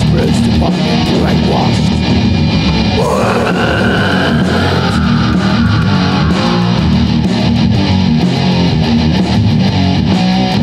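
Death metal band playing at full, steady volume: distorted electric guitars, bass guitar and drums. About three seconds in, a long high note slides in, rises briefly and then slowly falls away over about four seconds.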